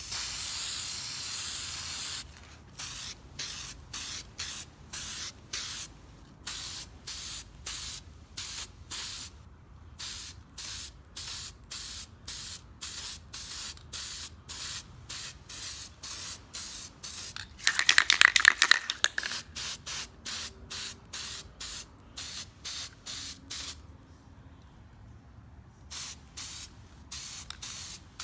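Aerosol spray paint can hissing as it lays a light first coat of black paint. It sprays steadily for about two seconds, then in many short spritzes, about two a second, with one louder, longer spray about two-thirds of the way through.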